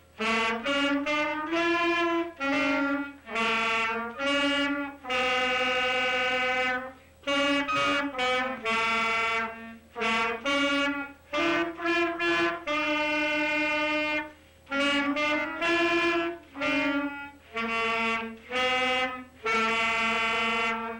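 Clarinets playing a simple tune together in Dixieland style, a run of held notes in short phrases with brief breaks between them.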